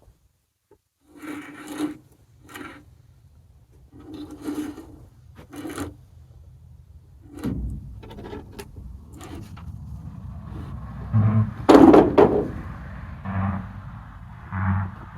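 Wood scraping and rubbing in several separate bouts, as timber is handled. A low steady rumble starts about halfway through, and the loudest scrape comes a little after it.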